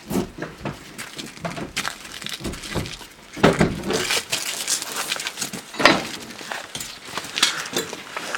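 Irregular metallic clanks, knocks and scrapes as stabilization struts are set against a car lying on its side, heard from inside the car.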